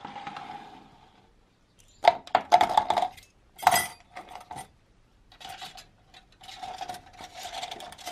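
Small metal toy-boat parts dropped into a clear plastic cup, clinking against the plastic and each other in several short clattering bursts.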